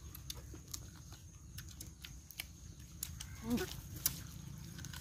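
Mouth sounds of people eating roasted chicken with their fingers: scattered sharp lip smacks and chewing clicks, several a second. About three and a half seconds in there is a short vocal sound falling in pitch.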